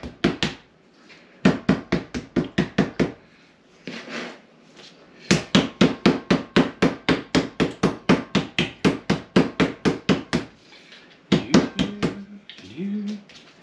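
Meat mallet pounding raw steak on a cutting board to tenderize it: quick runs of sharp strikes, about four a second, broken by short pauses.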